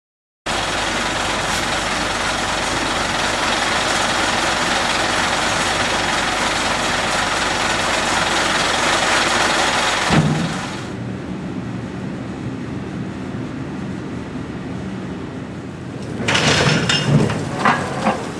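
Heavy vehicle running: a loud steady rush for about the first ten seconds, then a drop to a quieter low engine hum, with a few short louder bursts near the end.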